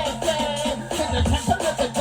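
Drum and bass music being mixed by a DJ, with a fast breakbeat and heavy bass.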